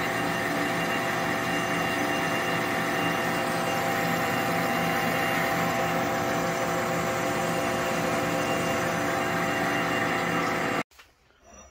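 1941 Boye & Emmes engine lathe running steadily, spinning a steel nut blank with a boring bar in its bore: an even hum with several steady tones. It cuts off abruptly near the end.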